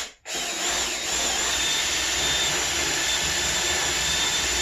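Power tool cutting into wood to make a recess for a leg, starting a moment in and running at a steady, even speed.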